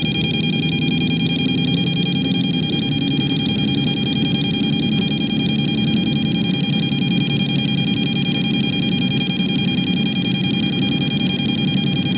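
Handheld EMF gauss meter with a 0–5 milliGauss scale sounding its high-pitched alarm beep over and over without a break, its needle near the top of the scale: a high magnetic-field reading beside power lines. A low steady rumble lies underneath.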